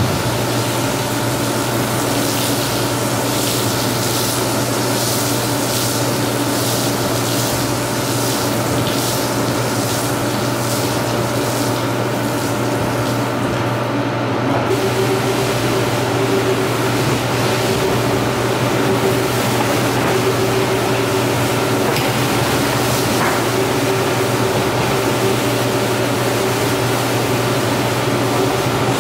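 Steady hum of rug-wash machinery with water splashing and sloshing in the first half. About halfway through a second motor tone joins, and near the end a rotary floor scrubber is running over the soapy, wet rug.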